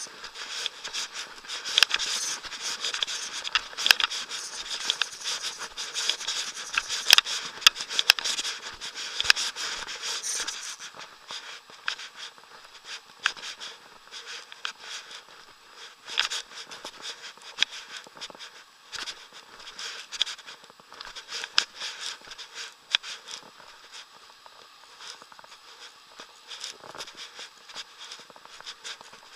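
Close rustling, scraping and irregular clicking: handling noise as clothing, rod butt and gear rub against a body-worn action camera while the angler plays a fish. Busy and louder for the first ten seconds or so, then quieter and sparser.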